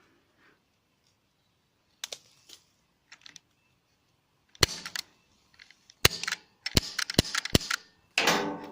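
Airsoft guns firing: a single sharp crack, then a run of cracks a few tenths of a second to over a second apart, with a louder burst near the end.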